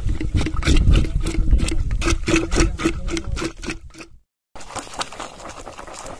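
A rotating beater churning watermelon flesh into juice inside the hollowed-out rind: a wet churning with a rapid pulsing hum and clicking. It cuts off about four seconds in, and a quieter wet sound follows.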